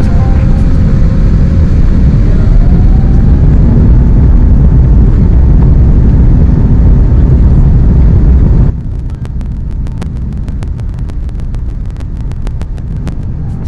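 Airbus A350-900's jet engines at takeoff power, heard as a loud, dense rumble inside the cabin during the takeoff roll. About nine seconds in it cuts abruptly to a quieter, steady cabin rumble with light clicking.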